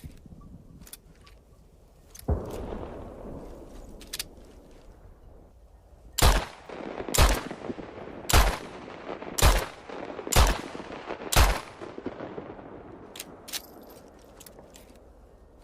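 A revolver fired six times in steady succession, about one shot a second, each shot trailing off in a short echo. A duller thud comes a few seconds before the shots, and light clicks are heard before and after them.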